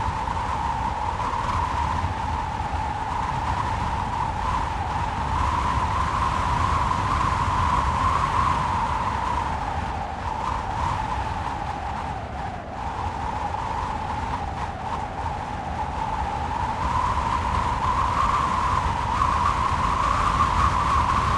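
Wind howling: a steady whistling hiss that slowly wavers in pitch over a low rumble. The pitch sinks a little around the middle and rises again near the end.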